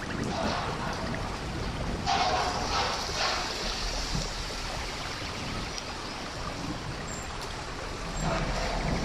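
Heavy rain pouring steadily, with a louder rush of water for a second or so about two seconds in.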